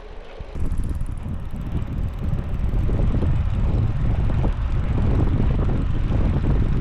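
Wind buffeting the microphone, with rolling noise, while a Brompton folding bike is ridden on a test ride of its newly fitted front wheel. The noise starts suddenly about half a second in and then runs steadily.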